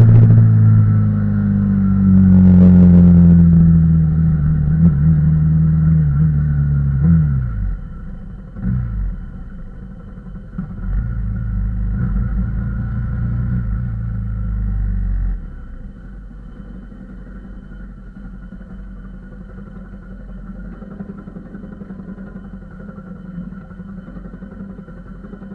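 Yamaha YZF-R15's single-cylinder four-stroke engine heard close up from the bike, its pitch falling as the motorcycle slows. About seven seconds in it drops away, a couple of short throttle blips follow, it runs lower for a few seconds, then settles to a steady idle for the last ten seconds as the bike stops.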